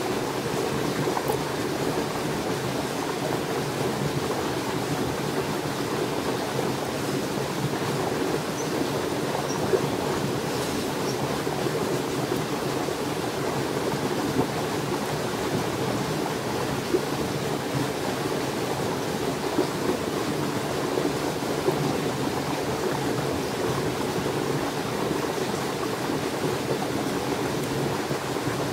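Steady rushing of flowing water from a nearby stream, with a few faint, scattered clicks.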